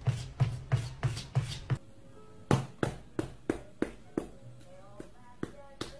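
Background music with a steady beat of about three strikes a second. About two seconds in, the heavy low thump drops out and the music goes on lighter, with short melodic notes.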